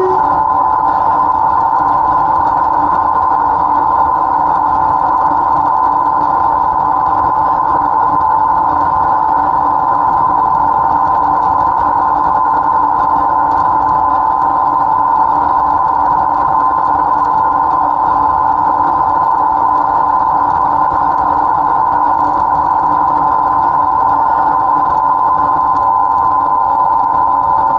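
Class 07 Ruston & Hornsby diesel shunter running steadily while hauling the train, heard close up from its front buffer beam: a constant loud engine drone with a whine, unchanging throughout.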